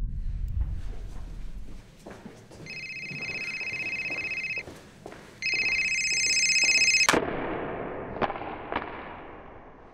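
A telephone ringing in two bursts of fast, trilling electronic ring, the second louder. The ring cuts off with a sharp hit, followed by two light clicks. Faint regular taps sound in the first two seconds.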